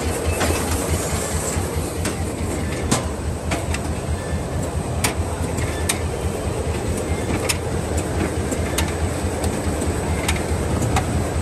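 Bag-on-roll making machine for plastic food bags running: a steady low mechanical hum with scattered sharp clicks.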